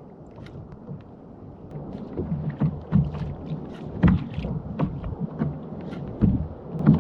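Water knocking and lapping against a fishing kayak, with irregular thumps and small clicks that grow louder from about two seconds in.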